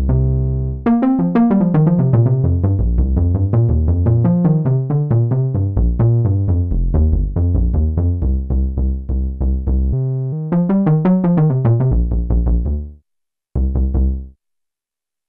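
Sequential Prophet-10 analog polysynth factory preset, played in the low register: one held bass note, then a long run of rapid, short, plucky notes in a moving bass-and-melody pattern. The playing breaks off about thirteen seconds in, with one brief closing phrase after it. The sound is dry, taken straight from the synth's output.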